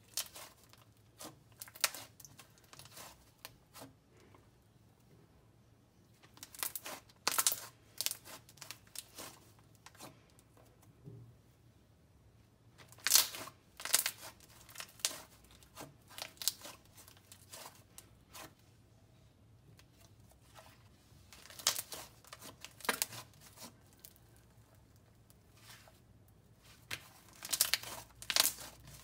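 Jelly slime being squeezed and worked by hand, giving clusters of sharp pops and crackles as trapped air bubbles burst, coming in bursts every few seconds.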